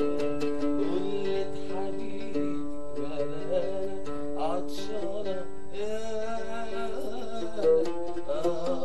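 Male voice singing an Arabic tarab song in long, wavering held notes, accompanied by an oud plucked in a steady run of notes.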